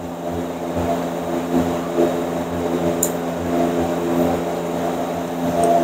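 Steady mechanical drone made of several fixed pitches stacked together, with a single sharp click about three seconds in.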